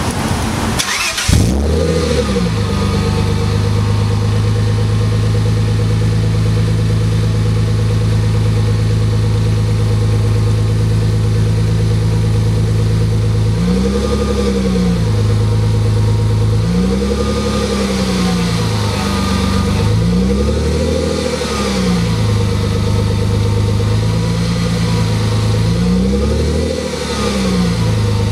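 A 1995 Mercedes C280's straight-six engine starts about a second in, then idles steadily through a C36 AMG exhaust that has only the catalytic converter and AMG resonator fitted and no rear muffler. From about halfway on it takes several short, light revs, each rising and falling straight back to idle.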